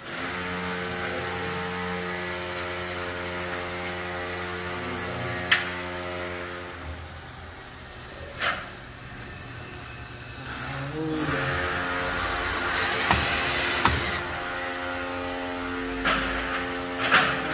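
Electric drill motor running in long steady whirs, broken by a few sharp knocks as the inverter is fixed to the wall.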